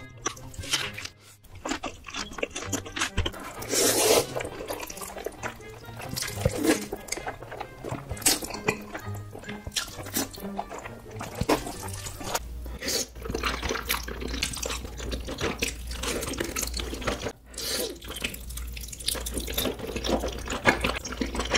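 Close-miked ASMR eating sounds: wet chewing, lip smacks and slurping of black-bean noodles, a dense run of small wet clicks, over background music with a low bass line.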